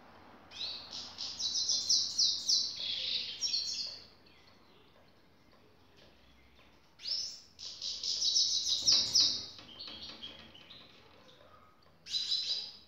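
Grey-headed goldfinch singing three bouts of quick, high twittering song. The first two each last a few seconds; the third is short and comes near the end.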